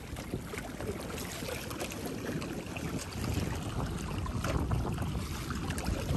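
Wind and sea water around a small fishing boat: a steady rushing noise with a gusty low rumble that grows stronger about halfway through, and a few faint knocks.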